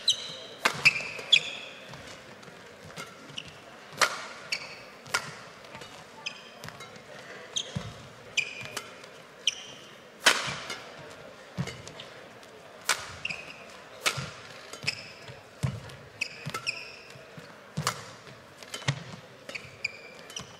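Badminton rally: sharp cracks of rackets striking the shuttlecock, irregularly every half second to second and a half, with shoes squeaking on the court mat and the thud of players landing.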